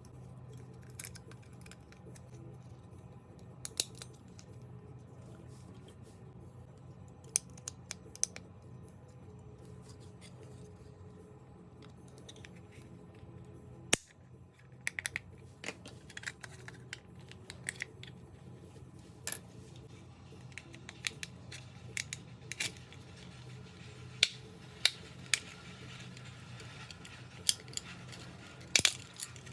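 Handling noise: scattered sharp clicks and taps, sparse at first and coming more often from about halfway, over a steady low hum.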